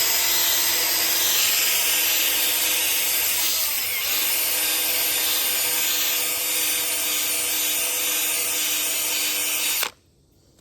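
Power drill spinning a Velcro-backed sanding pad against a wheel rim, grinding out curb rash: a steady motor whine over a constant abrasive hiss, cut off suddenly near the end.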